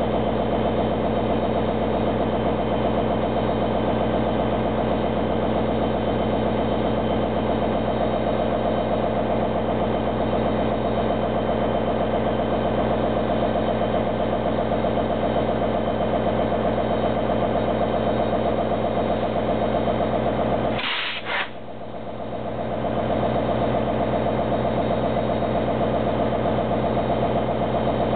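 Diesel-electric passenger locomotive, an NJ Transit PL42AC with its EMD 710 diesel, idling steadily. About two-thirds of the way through there is a brief hiss, and the engine sound dips for a moment before coming back.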